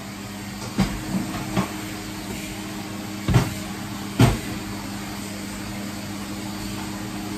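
Steady hum of a kitchen cooker-hood extractor fan, with a handful of knocks and clunks as a metal pasta pot is handled on the hob, the two loudest about three and a half and four and a quarter seconds in.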